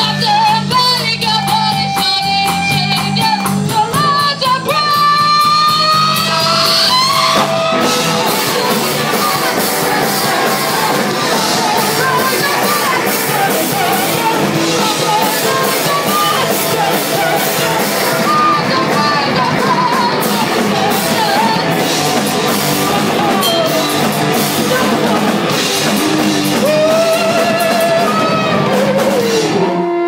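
Live blues-rock band playing: a woman singing with gliding, held notes over guitar and drum kit, the band coming in much fuller with crashing cymbals about eight seconds in.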